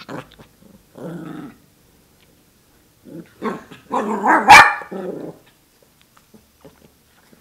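Lhasa Apso puppy growling: a short growl about a second in, then a run of growls with one sharp bark about four and a half seconds in.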